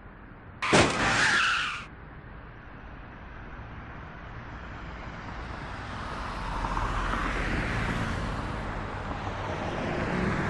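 Dubbed-in car-crash sound effect: a sudden loud burst of tyre screech and impact, about a second long, shortly after the start. It is followed by road traffic noise that slowly grows louder.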